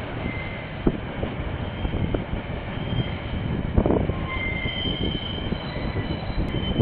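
KiwiRail train rolling past, a steady rumble with a few sharp clicks and brief, faint wheel squeals, heard through a security camera's microphone.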